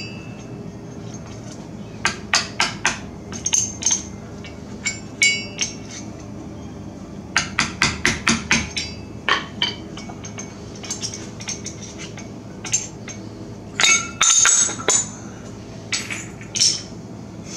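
Light metal taps and clinks in irregular clusters as the thin axle-nut dust cover on a GMC Sierra front wheel hub is worked loose around its edge with a hammer and tool. A louder, longer clatter comes near the end.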